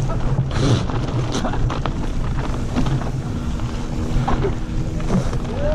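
Mountain bike descending a dry, rocky dirt trail: tyres rolling and skidding over dirt and stones, the bike rattling and knocking over the bumps, with wind rushing over the helmet-camera microphone. A faint steady hum joins about halfway through.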